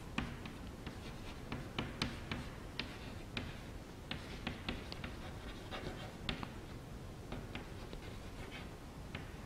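Chalk writing on a chalkboard: a run of irregular sharp taps and short scrapes as letters are written.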